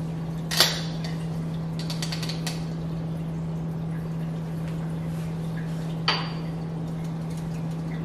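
Metal clinks of an espresso portafilter and dosing cup being handled on the counter: a sharp clink about half a second in, a few faint taps, and another sharp clink about six seconds in, over a steady low hum.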